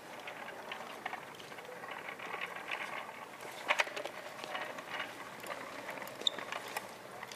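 Quiet ambience of a large hall, with scattered light clicks and taps and a sharp pair of clicks about four seconds in.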